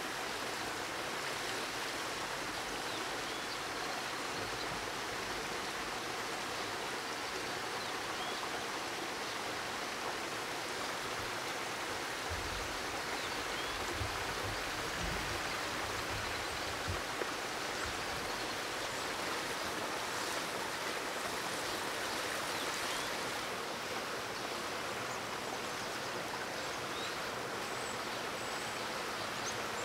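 Steady rushing of a flowing stream, with a few soft low bumps about halfway through and some faint high bird chirps near the end.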